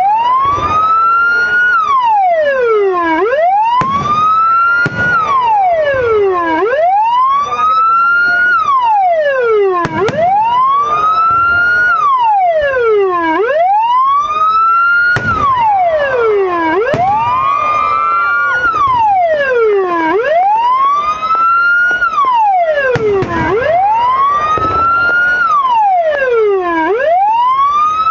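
Aftermarket patwal (police-escort) siren module playing through a TOA 10–15 watt speaker in its wail tone: a loud, steady rise-and-fall sweep that climbs for about a second and a half and then falls, repeating about every three and a half seconds, eight cycles in all.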